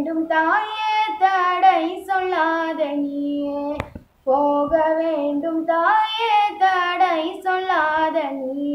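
A girl singing a Tamil devotional song to Krishna unaccompanied, one voice alone in two long phrases with a short breath about four seconds in.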